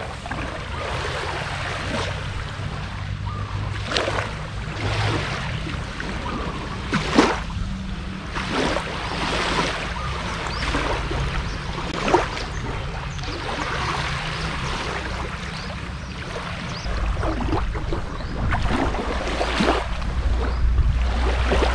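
Small waves lapping softly at the edge of a sandy beach on a calm sea, with a wash of water and a gentle splash every second or two. A low rumble grows near the end.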